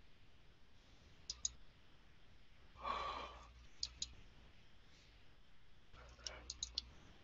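Faint computer mouse clicks, mostly in quick pairs, with a cluster of four clicks near the end as slideshow arrows are clicked. A breath out about three seconds in.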